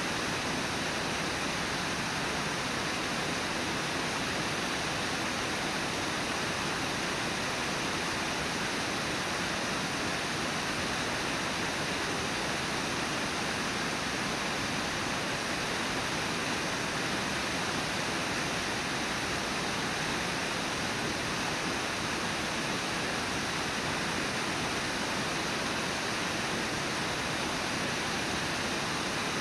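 Steady rush of the Brooks River pouring over Brooks Falls, an even roar of falling white water.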